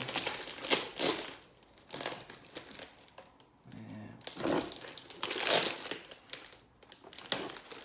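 Packaging being handled and opened by hand: irregular bursts of crinkling and rustling wrapping, with a little tearing.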